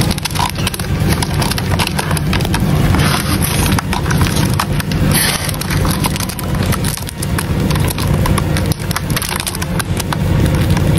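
Hercules beetle and Palawan giant stag beetle grappling on a bark-covered log: a dense, irregular run of small clicks, taps and scrapes from their clawed feet and hard shells on the wood, over a steady low rumble.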